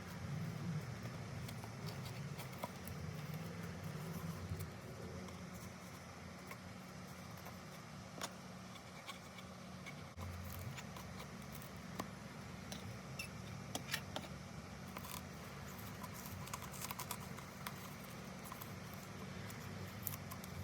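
Scattered small clicks and rustles of hands handling tape on a painted craft piece, over a steady low hum.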